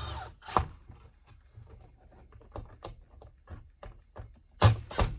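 A cordless screw gun stops running right at the start, followed by small clicks and taps of a metal light-fixture mounting bracket and screws being handled, with two sharp knocks near the end.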